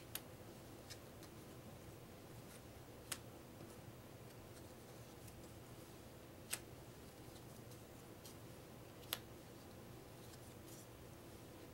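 Small game cards being flipped and laid down one at a time on a wooden tabletop: four faint sharp clicks about three seconds apart, with a few softer ticks between them, over a quiet room.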